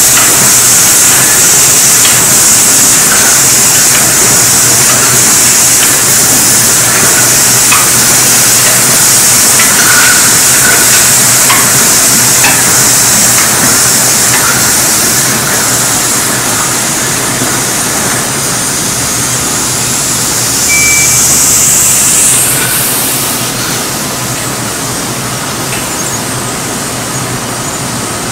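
Automatic water-bottling line running: a loud, steady hiss over a low machine hum, with scattered light clicks from the machinery and the large plastic jugs. The hiss cuts off about four-fifths of the way through, leaving the quieter hum.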